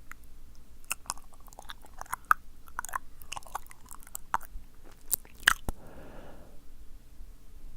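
Close-miked wet mouth sounds for ASMR: an irregular run of sticky tongue clicks and lip smacks, then a brief breathy sound about six seconds in.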